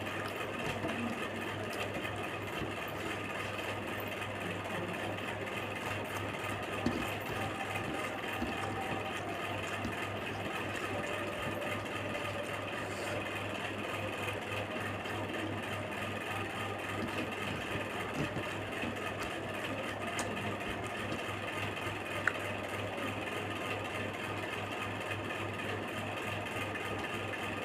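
A steady machine hum with an even low throb, broken by a few faint clicks.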